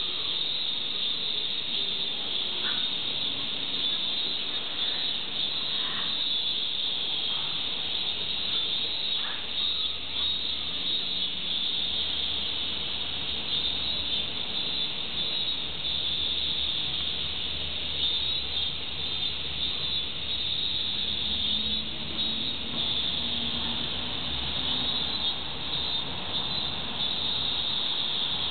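Steady high-pitched buzzing of an insect chorus, even throughout, with a low rumble joining about ten seconds in.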